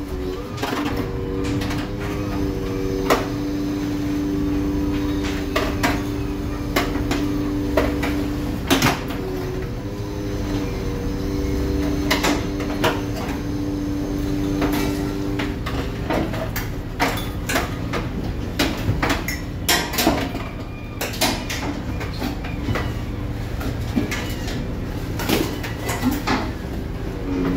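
Longline fishing boat working its gear: a steady low engine rumble with a droning machine hum, which breaks off about halfway and comes back near the end, and many irregular sharp knocks and clanks of the line gear against the boat's metal rail and fittings.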